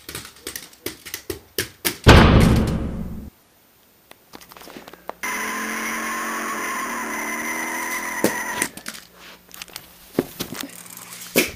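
Small Lego toy car tumbling down carpeted stairs: a quick run of light knocks and clatters over the first two seconds. A loud rushing noise follows for about a second, then a steady ringing tone with several pitches lasts about three seconds, and scattered knocks come near the end.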